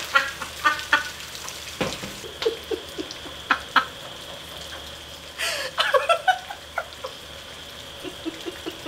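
A woman sobbing and whimpering in short tearful bursts, over a steady hiss of rain.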